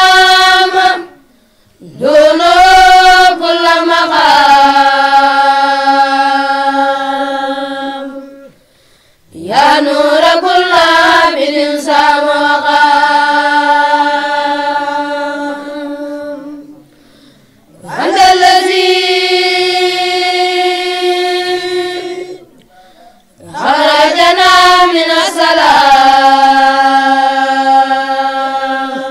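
A single high voice chanting Arabic religious verse unaccompanied. It sings long melismatic phrases, each opening with a wavering run and ending on a long held note, with a short breath between them, about four phrases in all.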